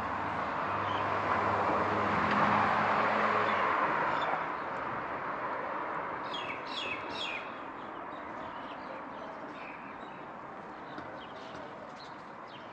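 A vehicle passes, its engine hum and tyre noise swelling and then dying away about four seconds in. A bird then gives three or four quick, high, downward-sweeping chirps about six to seven seconds in, over faint street background.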